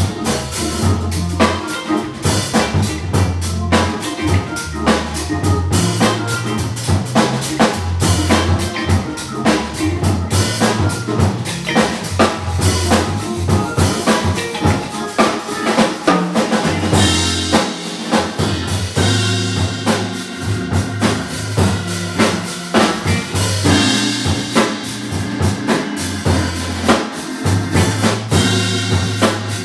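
Live blues organ trio playing: a Hammond organ with a deep bass line, an electric guitar and a drum kit keeping a steady beat.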